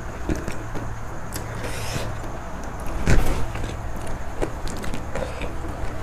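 Fingers peeling cooked shrimp, with small crackles and clicks as the shell comes away, over a steady low hum. One louder sound comes about three seconds in.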